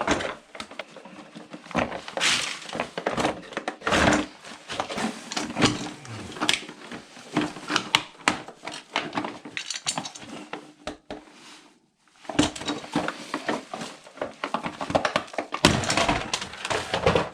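Rummaging through rubbish in a bin: hard items clattering and knocking against each other in quick, irregular succession, with a faint steady hum underneath and a brief lull about twelve seconds in.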